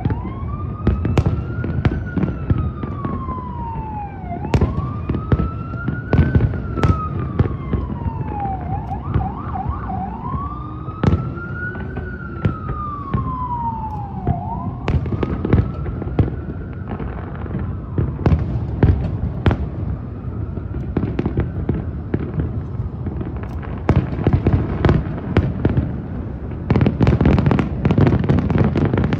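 Fireworks going off with sharp bangs while an emergency-vehicle siren wails, rising and falling about every four seconds with a quick warble partway through, then fading out about halfway. A dense run of bangs near the end.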